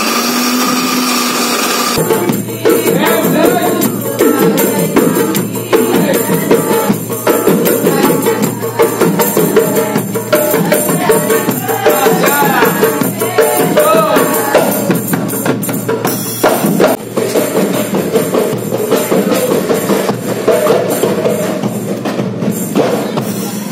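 A countertop blender runs for about two seconds. Then a marawis group practises: women beat hand-held frame drums in a steady rhythm while voices sing sholawat.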